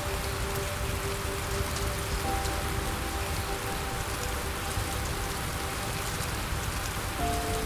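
Steady rain hissing, with soft held music notes underneath whose chord changes about two seconds in and again near the end.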